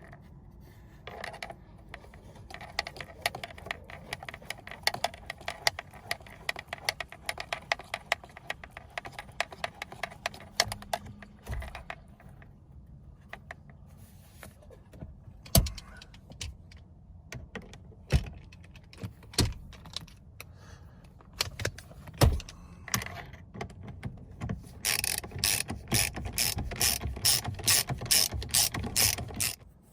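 Ratchet wrench clicking rapidly as it runs in and tightens the steering wheel's centre retaining bolt. The clicking comes in bursts, with a few separate knocks midway and a loud, fast run of clicks near the end.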